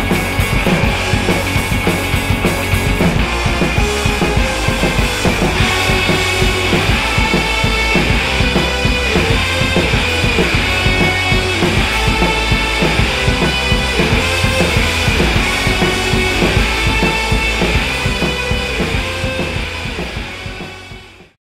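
Background rock music with a steady drum-kit beat, fading out near the end and then stopping.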